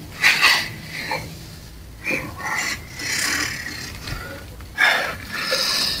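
A man's heavy, ragged breathing and gasps, with the loudest breaths near the start and about five seconds in.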